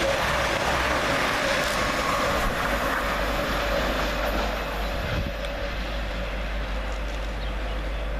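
Two coupled Class 222 Meridian diesel multiple units running through at speed: a steady rush of wheel and engine noise with a held mid-pitched whine, easing off a little about five seconds in.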